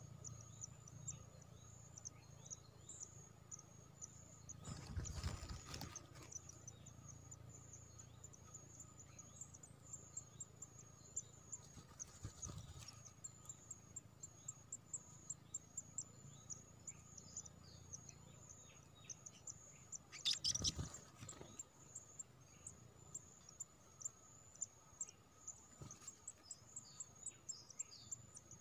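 Faint forest ambience: a steady high-pitched insect trill, with short bird chirps scattered through it. Two brief bursts of noise come about five seconds in and again about twenty seconds in.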